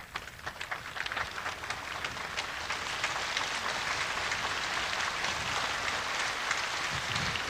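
Large crowd applauding, beginning as scattered claps and thickening within about three seconds into dense, steady applause.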